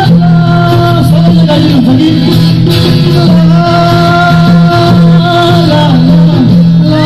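Live acoustic band: a male voice singing a Nepali song with long held, sliding notes, accompanied by two strummed acoustic guitars and a madal hand drum.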